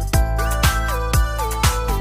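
Background music with a steady beat, about two beats a second, and sliding electronic notes.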